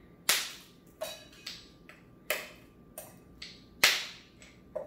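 A bar spoon knocking on an ice cube to crack it over a shaker tin: about seven sharp knocks at uneven spacing, the loudest about four seconds in.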